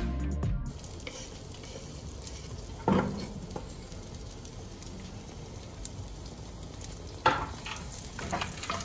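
Sun-dried tomatoes sizzling steadily in hot oil in a frying pan. A few sharp knocks from stirring cut through it, the loudest about three seconds in and just after seven seconds.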